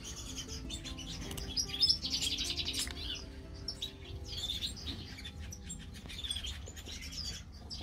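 Thin, high chirping of small finches, with a dense, rapid run of calls about two seconds in, over soft background music.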